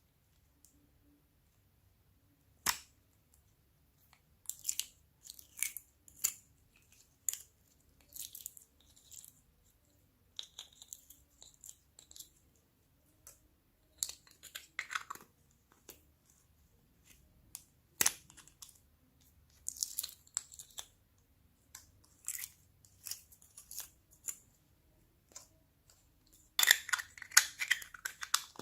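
Slime being mixed and squished by hand: irregular sticky clicks, crackles and small pops coming in clusters, denser and louder near the end.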